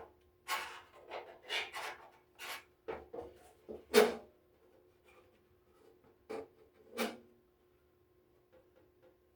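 Parts of an electric stove heater being handled during disassembly: a run of short scrapes and knocks, the loudest about four seconds in, with two more a few seconds later, over a faint steady hum.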